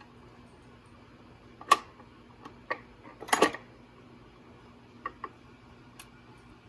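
Handling of a record player and its records: a sharp click about two seconds in, a short clatter near the middle, then a few lighter clicks, over a faint steady low hum.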